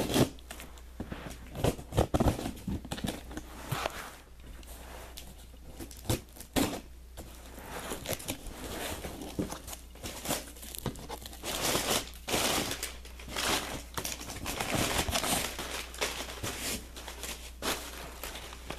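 Packing tape being cut and ripped off a cardboard shipping box, with the cardboard scraping and rustling: an irregular run of short tearing and crinkling noises, with a few longer rips.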